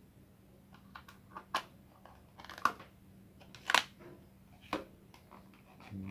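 Sharp, irregular plastic clicks and knocks, about five, as a plastic rechargeable flashlight is handled and its USB charging cable fitted; the loudest comes about three and a half seconds in.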